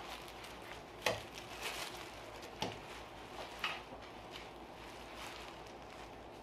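Plastic trash bag crinkling and rustling as it is lifted out of a stainless steel stock pot, with a few short crackles over a quiet background.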